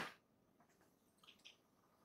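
Near silence: room tone. A knock fades out right at the start, and two faint clicks come about a second and a half in.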